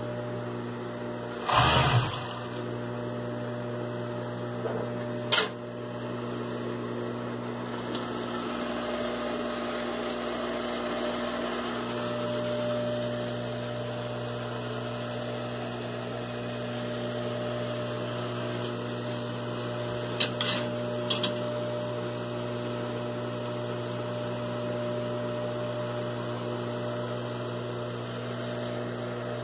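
Jack industrial overlock (interlock) sewing machine humming steadily while switched on, with a short louder burst about two seconds in and a few sharp clicks later.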